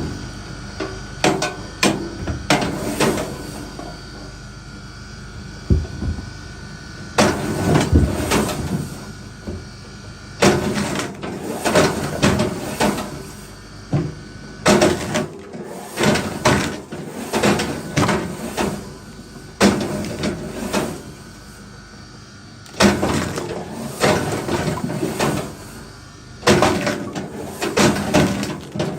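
Wooden knocking and clattering in bursts every two to four seconds, from firewood being split and handled.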